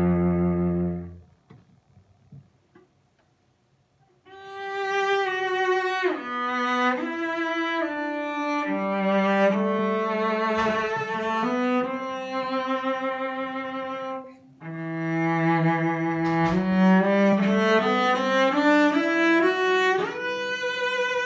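Solo cello, a c. 1910 Michel-Ange Garini made for the JTL firm of Mirecourt and strung with Kaplan D'Addario strings, played with the bow. A low held note stops about a second in, and a pause of about three seconds follows. Then come two melodic phrases with vibrato and sliding shifts, the second climbing into the instrument's high register near the end.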